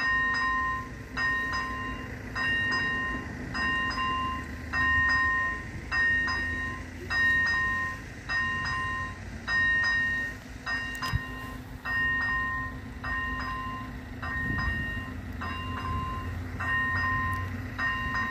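Railway level-crossing warning bell ringing steadily, a little under once a second, each stroke a clear two-tone ding. It signals that the crossing is closed for an approaching train. A low steady hum runs underneath.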